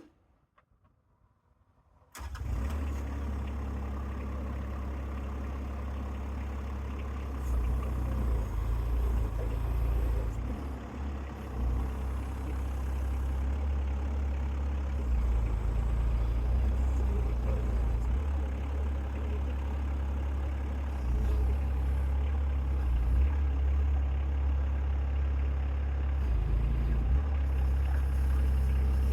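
Near silence, then about two seconds in a mini excavator's small diesel engine comes in suddenly and keeps running, its level rising and falling as the machine works.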